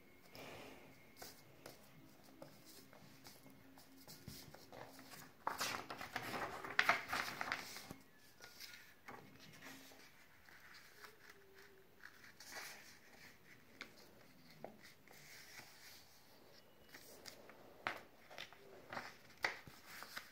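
A sheet of paper being handled, folded and creased by hand on a hard surface: faint rustling and sliding, louder for a couple of seconds partway through, with scattered light taps.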